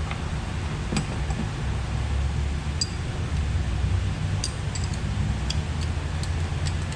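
Scattered light clicks and clinks of tools and parts being handled, over a steady low background rumble.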